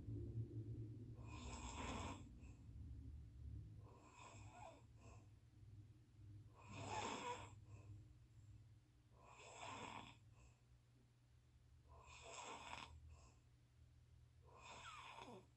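A sleeping person snoring, one snore about every two and a half to three seconds, in a steady rhythm.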